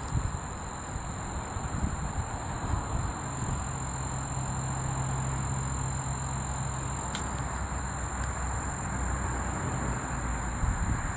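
Insects droning on one steady high note, over a low rumbling wind noise on the microphone.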